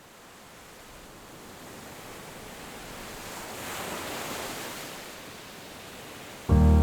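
Ocean surf: a wave's wash builds, peaks about four seconds in and recedes. Music comes in near the end.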